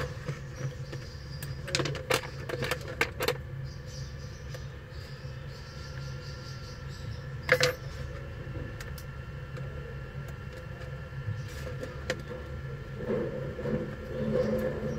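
Small metal repair tools clicking and tapping against an iPhone's parts as it is taken apart: a quick run of clicks about two seconds in and one sharp click in the middle, over a steady low hum.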